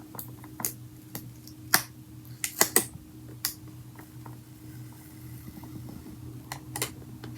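Scattered sharp taps and clicks of hands and fingernails working a packaging box open: single knocks with a quick cluster of three about two and a half seconds in and a pair near the end, over a faint steady hum.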